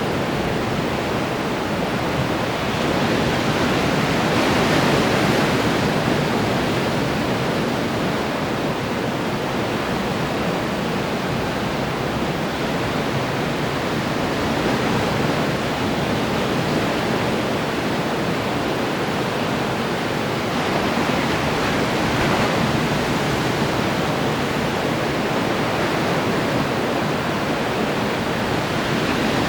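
Ocean surf washing onto the shore in a continuous rush, swelling louder about four seconds in and again a little past twenty seconds as bigger waves break.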